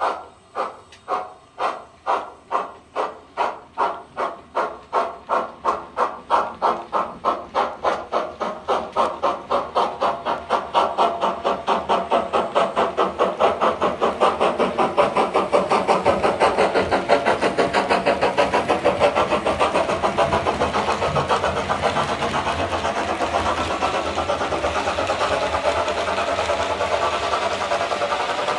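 DCC sound decoder in a model BR 'Britannia' steam locomotive playing its exhaust chuffs as the engine pulls away: the beats start at about two a second and quicken steadily until they run together into a continuous hissing rush after about fifteen seconds.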